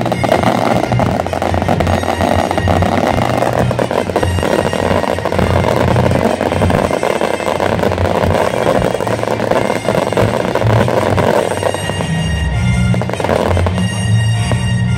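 Aerial fireworks crackling: a dense, continuous crackle of many small bursts from glitter and crackling-star effects, with music playing along. The crackling thins about twelve seconds in as the music's bass comes back up.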